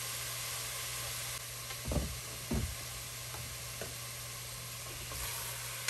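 Chicken pieces and celery sizzling in a stainless steel pot, a steady hiss, with a couple of soft low thumps about two seconds in.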